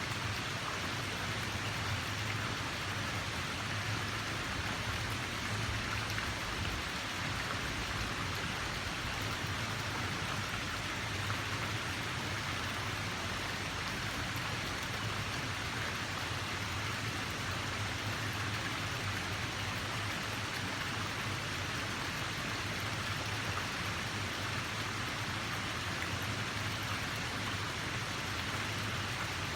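Steady rush of water: an even, unbroken hiss with a low rumble underneath.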